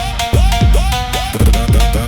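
Instrumental drift phonk music: deep bass hits in a steady quick beat under a repeating high melody with pitch-sweeping synth notes, no vocals.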